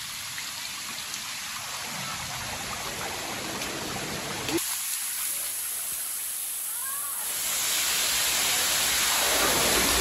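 Rushing water of a cold mountain stream, a steady hiss that grows louder about three-quarters of the way through.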